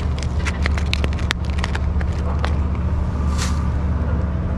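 Crinkling and clicking of a plastic and paper fish-hook packet being torn open and handled, with a short rustle about three and a half seconds in, over a steady low rumble.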